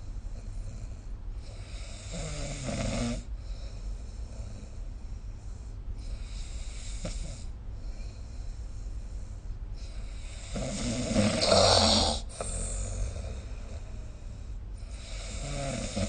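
A sleeping person snoring, the snores several seconds apart: one about two seconds in, a louder, longer one around eleven seconds in, and another near the end. A steady low hum runs underneath.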